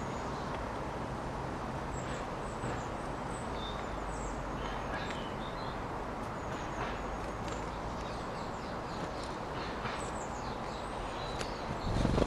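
Small garden birds chirping and twittering in short, scattered high notes over a steady low rumble of distant city traffic. A brief low thump comes near the end.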